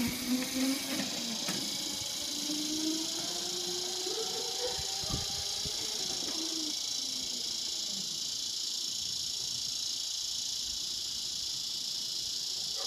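Razor electric scooter's motor whining, its pitch rising and falling with speed and fading out about halfway through as it moves away. Under it runs a steady high hiss of an insect chorus.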